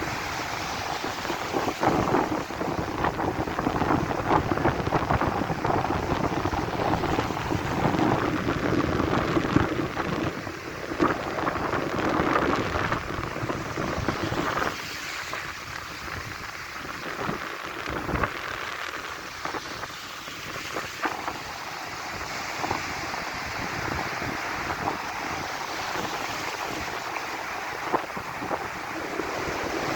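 Sea waves washing onto a beach, with wind buffeting the microphone, louder in the first half and easing after about midway.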